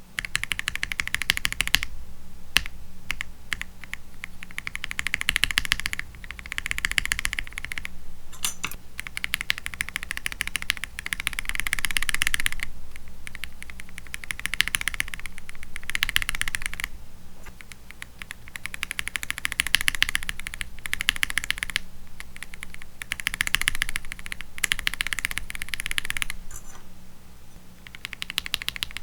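Typing test on a mechanical keyboard fitted with Akko CS switches: rapid keystrokes in bursts of a few seconds, with short pauses between.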